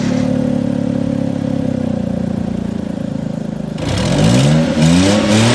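Car engine running steadily, then revving up repeatedly from about four seconds in, its pitch rising in several sweeps.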